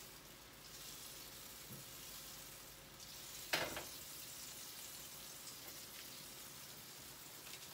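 Melted butter sizzling faintly in a hot frying pan, a soft, even hiss, with one sharp clack about three and a half seconds in.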